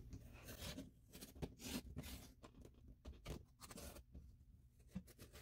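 Faint, irregular scratching and small clicks of a Creative Memories Custom Cutting System blade running around a plastic oval template, cutting through cardstock.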